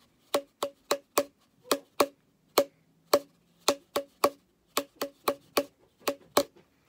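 Cardboard paper towel tube struck against the palm of a hand, making about sixteen sharp knocks in a changing, uneven rhythm.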